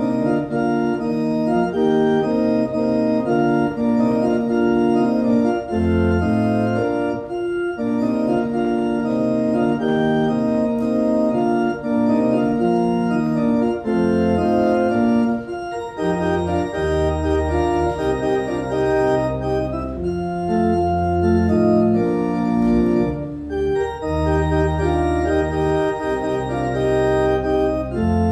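Organ playing offertory music: slow, sustained chords, with deeper bass notes coming in more strongly a little past halfway.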